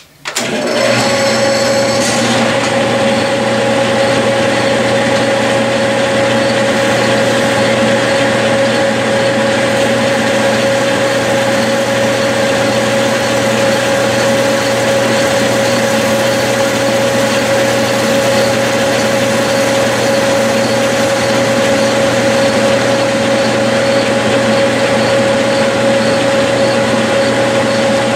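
Clausing metal lathe starting up and running at steady speed with a three-jaw chuck spinning, a steady whine from its drive over a low hum.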